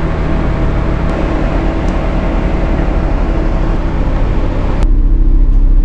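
Smart Fortwo 451's one-litre three-cylinder turbo petrol engine idling steadily, heard from inside the cabin, with a broad hiss over it that cuts off sharply about five seconds in.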